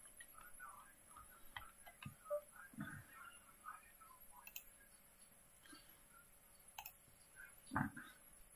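Quiet room tone with faint, irregular clicks and ticks and a few soft low knocks, the loudest knock a little before the end.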